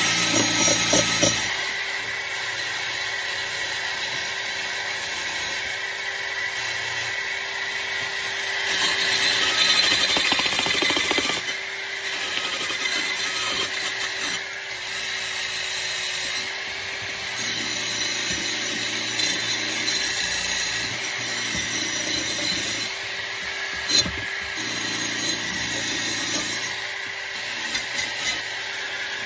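Electric drill spinning a wire wheel brush against a rusty steel trowel: a steady motor whine with the hiss and scrape of the wire bristles scouring off rust, getting louder for a couple of seconds about nine seconds in.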